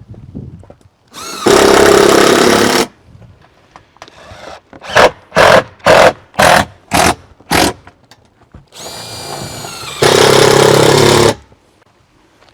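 Power drill running screws into metal roofing: a steady run of about a second and a half, then six short trigger bursts in quick succession, then a second run of about a second and a half that builds up before it.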